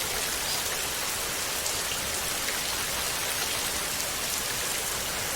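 Heavy rain falling steadily on glass, an even, unbroken patter of drops.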